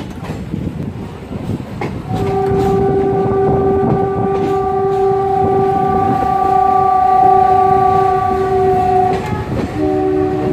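Railway locomotive horn sounding one long steady blast from about two seconds in until about nine seconds, then a shorter second blast at a different pitch near the end. Underneath is the steady rumble and clatter of a passenger train rolling slowly through a station, heard from an open coach doorway.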